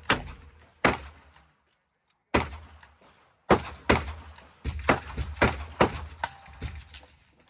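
Gunshots at a shooting range, each a sharp crack with a short echo. A few single shots come first, then a quicker string of shots from about halfway through.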